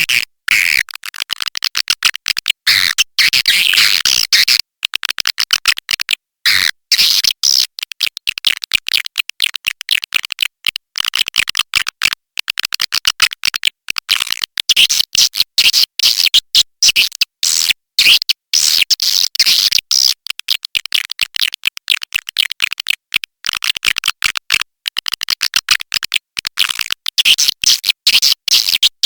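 Swiftlet lure-call recording: a dense, unbroken twittering chatter of many high chirps, cut by frequent brief dropouts. It is a 'suara panggil' call track, played in swiftlet houses to draw birds in to roost and nest.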